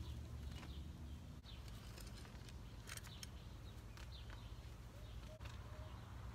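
Faint scraping and rustling of hands smoothing loose garden soil, with scattered soft ticks, over a steady low rumble.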